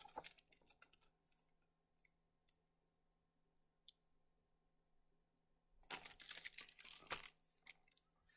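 Near silence with a few faint clicks. About six seconds in comes a short burst of paper rustling and tapping as a large picture book is handled and its pages are moved.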